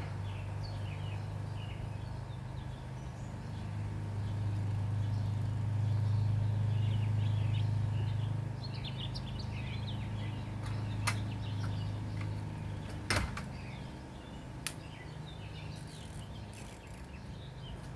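Small birds chirping repeatedly over a steady low hum, with a few sharp clicks in the second half, the loudest about two thirds of the way in.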